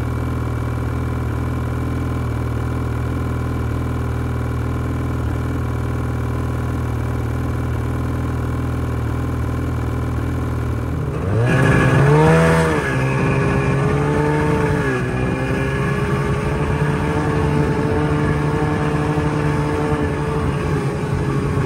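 Snowmobile engine idling steadily. About halfway through it revs up, pitch rising, and settles into a steady running note as the sled travels, easing off briefly a few seconds later and again near the end.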